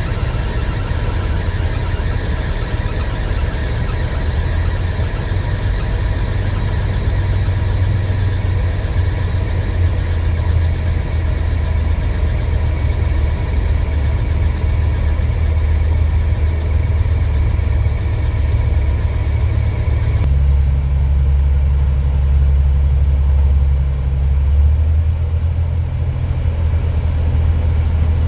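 Heavy diesel engine running steadily with a deep, low rumble. About two-thirds of the way through, the sound changes abruptly, losing its higher hiss and becoming duller and deeper.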